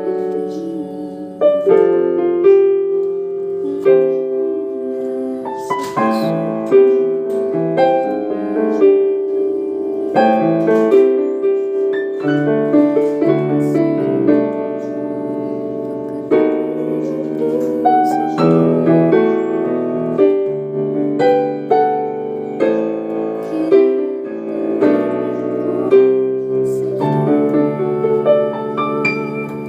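Casio Privia PX-130 digital piano played with a piano tone: a melody over chords, with notes struck and left to ring over one another.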